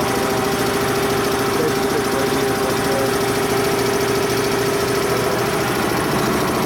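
Electric piston air compressor running steadily, with a steady hum and a fast, even pumping rhythm.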